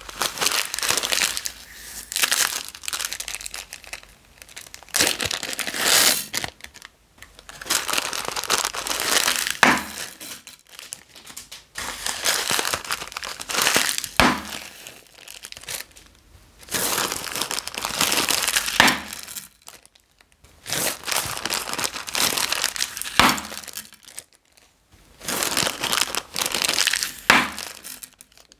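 Small resealable plastic bags of beads crinkling as they are handled, opened and emptied, in repeated bouts of a few seconds with short pauses between.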